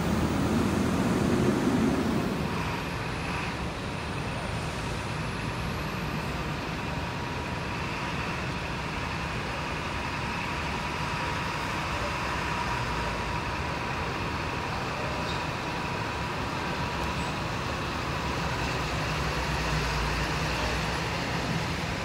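Diesel engine of a Mercedes-Benz intercity coach running as it pulls out of its departure bay, with a steady high whine over the engine. The engine is loudest in the first couple of seconds.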